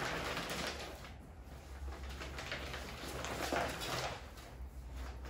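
Brown kraft paper rustling and crinkling as a rolled leather hide is unwrapped and unrolled across it, in uneven handling bursts.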